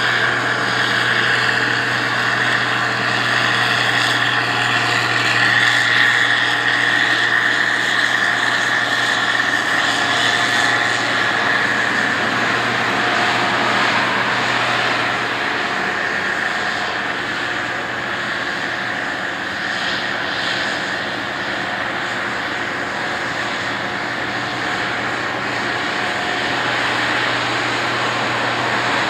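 Combine harvester running as it harvests, a steady engine drone with a high whine over it. It grows fainter as the machine moves away and louder again as it comes back.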